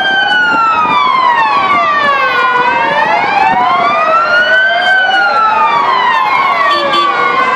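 Two emergency-vehicle sirens wailing at once, each rising and falling slowly over several seconds and out of step with the other, so that their pitches cross.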